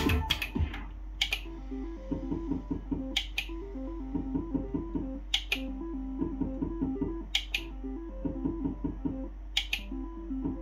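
Merkur Hot Frootastic slot machine spinning its reels: short repeating electronic reel tunes, with a sharp double click about every two seconds, one for each new spin. A louder jingle dies away in the first half second.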